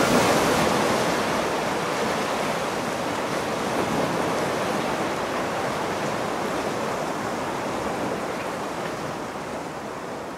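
Ocean surf: waves breaking and washing up on a sandy beach, a steady rushing that slowly fades out toward the end.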